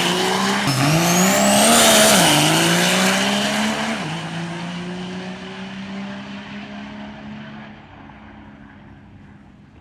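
Diesel drag-race pickup accelerating hard down the strip, its engine pitch climbing and dropping back at gear changes about half a second in and again near two and a half seconds, with a high whistle rising alongside. It then pulls away steadily and fades into the distance.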